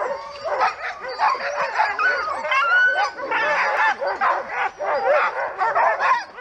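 A chorus of sled dogs barking and yelping at once, with a few drawn-out whines about halfway through, as the dogs are being harnessed to the gangline.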